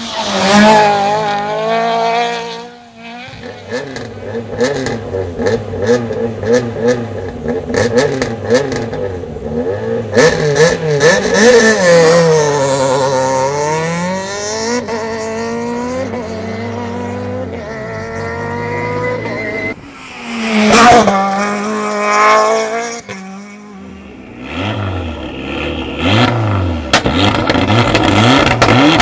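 Rally car engines at full throttle, revving up and dropping back through gear changes as cars go by, with sharp cracks in between. The loud peaks come near the start, about a third of the way in, two-thirds of the way in and near the end.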